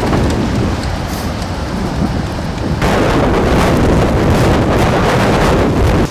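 Strong storm wind buffeting the microphone in a dense rumbling noise, with foaming seawater rushing at first. The noise jumps louder about three seconds in and cuts off suddenly at the end.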